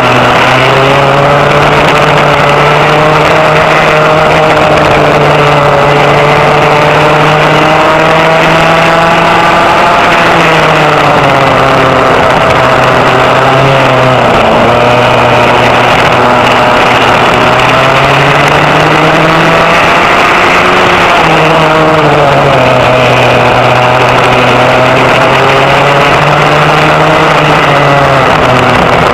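Vintage rear-engine racing kart's engine heard on board at race speed. Its pitch climbs along the straights and drops back as the kart slows for corners, several times over.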